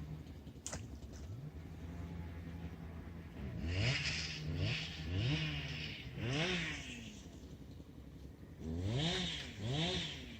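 A small engine idling, blipped up in short revs about six times, each rising and dropping back to idle within a second.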